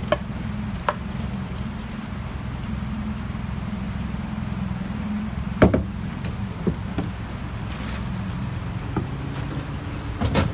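Outboard motor of a small aluminium launch running steadily, with occasional sharp knocks, the loudest a little over halfway through.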